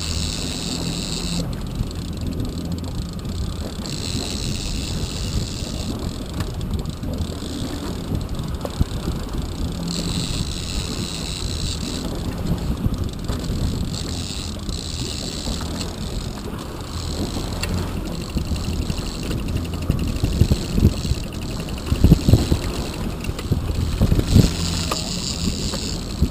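Boat engine running steadily at trolling speed, with wind buffeting the microphone and wash off the stern. A higher whirring comes and goes every few seconds, and a few knocks sound near the end.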